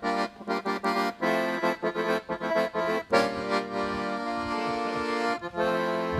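Accordion (sanfona) playing a short phrase: quick, clipped chords and notes for the first few seconds, then longer held chords toward the end.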